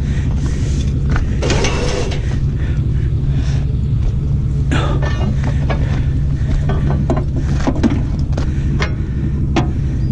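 A steady low engine hum runs under scattered metal clanks and knocks while a winch drags a scrap tractor aboard.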